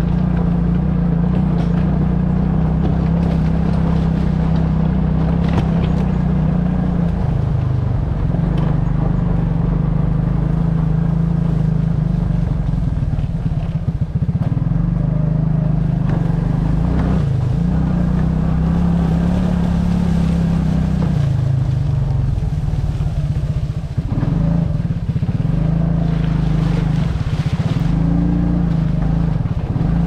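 Suzuki King Quad 300 quad bike's single-cylinder four-stroke engine running steadily under way. Its pitch dips briefly several times and comes back up as the throttle is eased and reopened.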